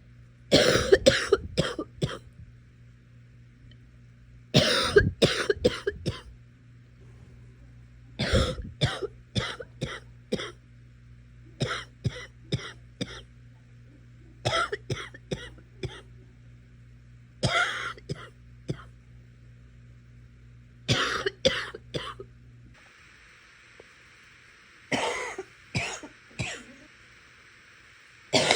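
A sick person coughing in repeated fits, each a quick run of three to six coughs, coming about every three to four seconds.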